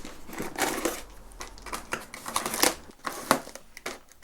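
Packaging being cut open and handled: irregular scraping, crinkling and rustling strokes, a few of them sharper.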